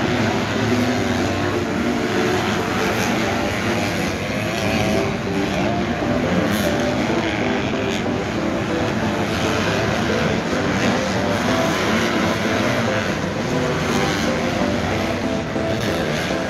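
Several supercross dirt bikes' engines revving hard together, their overlapping pitches rising and falling as the riders work the throttle.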